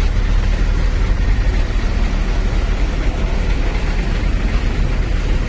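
Mercedes-Benz OF-1623 RF bus's front-mounted diesel engine idling steadily with a low rumble.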